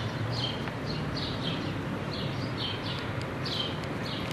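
Helicopter flying overhead, a steady low rumble of rotor and engine, with birds chirping again and again in short falling notes.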